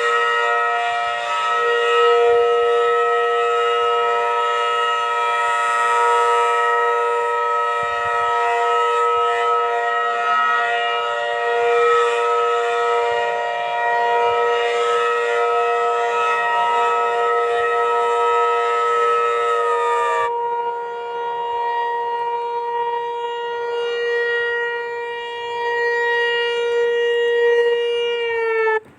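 Federal Signal Thunderbolt 1000T civil defense siren sounding a steady chord of tones. About two-thirds through, the higher tone slides down and drops away. Near the end the remaining tone winds down in pitch and cuts off.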